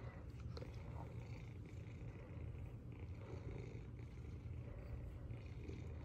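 Domestic cat purring steadily as it is stroked, a low, even rumble.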